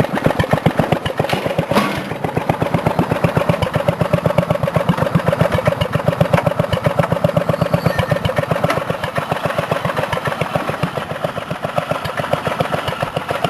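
7.5-horsepower riding lawn mower engine at a very low idle, its slow, evenly spaced firing pulses like an old Maytag washing-machine engine, pulling the mower along in gear. A short knock is heard about two seconds in.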